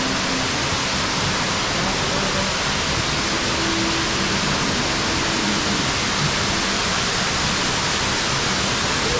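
Steady rushing of falling water in the dark ride's cave, a constant loud hiss with faint low tones beneath it.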